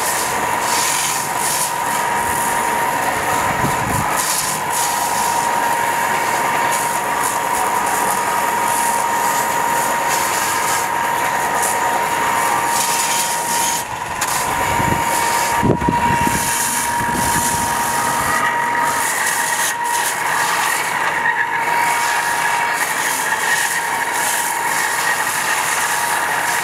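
Small upright belt sander running with a steady whine, its belt grinding the bark off a dry Osage orange stick pressed against it. The belt is too fine to cut quickly through the hard second layer of bark.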